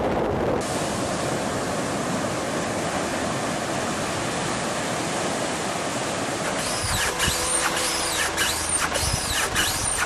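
Storm wind buffeting the microphone over rushing floodwater, a loud steady noise. About two-thirds of the way in, a rapid run of high, sweeping squeaks and ticks joins it.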